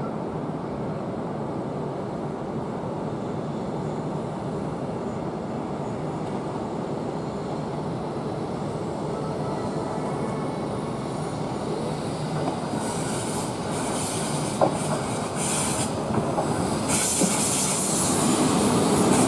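Electric train pulling into a station platform: a steady running rumble that slowly grows louder, joined about two-thirds of the way through by a high brake hiss and wheel squeal that comes and goes, then grows stronger near the end as the train slows alongside.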